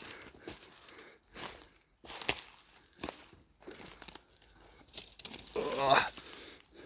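Footsteps crunching and rustling through dry brush and dead leaves, in uneven bursts about once a second, while bushwhacking through woods. A brief voice sounds about five and a half seconds in.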